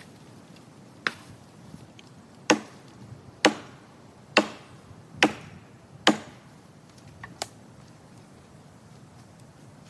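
A striking tool chopping into wood: about seven sharp blows spaced roughly a second apart, the middle ones the loudest.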